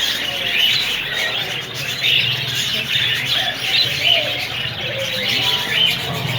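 Many caged birds chirping and chattering at once in a dense, overlapping chorus of short calls.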